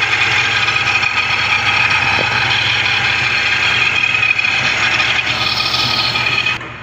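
Nissan Patrol Y62's V8 idling with a loud, steady whine from its fuel pump, a fault that sets codes P0088 and P0090 and that the mechanic puts down to the pump's timing being out. The sound drops off suddenly just before the end.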